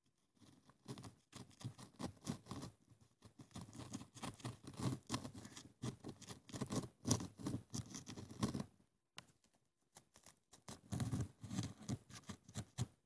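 Thin wooden stick poking and scraping inside the narrow neck of a small sand-art bottle, packing coloured sand down. It makes a faint run of quick, irregular clicks and scratches, stops for a couple of seconds about nine seconds in, then starts again.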